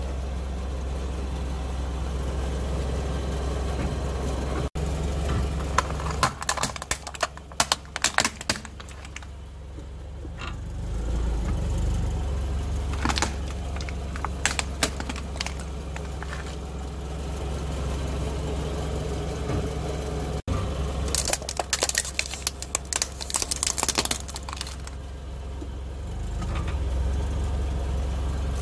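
A car tyre rolling slowly over things on paving and crushing them. There are three spells of crackling and crunching over the steady low running of the car's engine.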